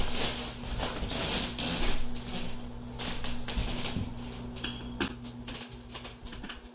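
Hand screwdriver turning a mounting screw in a plastic thermostat base plate on a wall, with the plate being handled: scraping and rubbing at first, then a run of small clicks and ticks, over a steady low hum.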